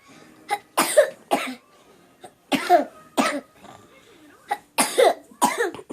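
A child coughing repeatedly, in three short fits of two or three harsh coughs each.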